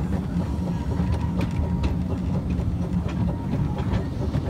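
Light-railway train running along the track, heard from a moving passenger coach: a steady low rumble of wheels on rails with irregular clicks and knocks.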